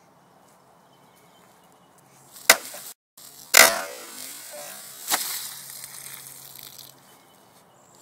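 Cold Steel Laredo Bowie knife slashing through a liquid-filled plastic jug. A sharp crack comes first, then about a second later a louder strike with a burst of splashing liquid, and a second hissing splash a moment after that.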